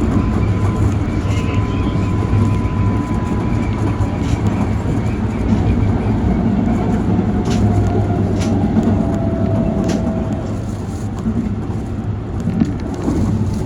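Keikyu Main Line electric train running: a steady low rumble with a faint motor whine that sags slightly in pitch, and a few sharp clacks.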